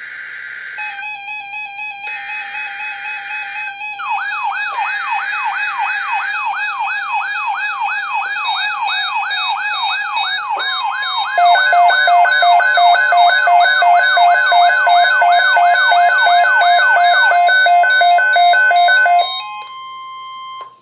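Emergency Alert System tones: three short bursts of screeching header data, then a steady tone joined by a fast wailing siren sweep. From about eleven seconds in, loud alternating high-low tones come in, and near the end everything stops except one steady tone, which cuts off just before the voice message.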